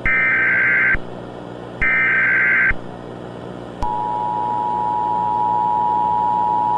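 Emergency Alert System broadcast tones. Two roughly one-second bursts of the SAME digital header, a harsh buzzy warble, are followed about a second later by the steady two-tone EAS attention signal, which starts just over halfway through and holds.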